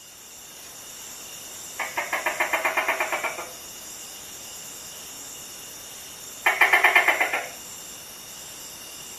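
Gecko calling: two rapid chattering series of clicks, about eight a second, the first lasting about a second and a half and the second about a second. A steady high-pitched hiss of night ambience runs underneath.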